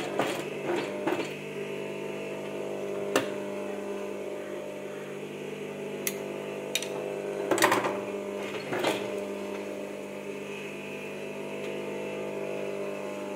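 Electric sewing machine running with a steady hum as it stitches silver bead trim onto fabric. A few sharp clicks come through it, with a louder rattle of knocks about seven and a half seconds in.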